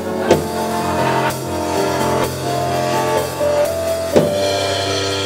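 Electronic stage piano played live: sustained chords in an instrumental break between sung lines, with a new chord struck about four seconds in.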